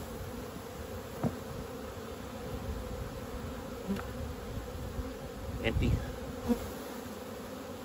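Honeybees buzzing steadily around an open hive, with a few short knocks and scrapes from the hive tool and wooden frames; the loudest comes about two-thirds of the way in.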